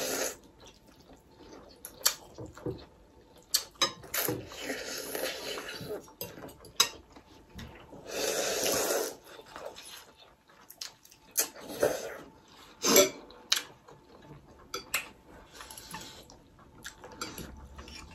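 Thukpa noodles and soup slurped up in several long noisy draws, the loudest near the middle, with short clicks of forks and spoons against glass bowls in between.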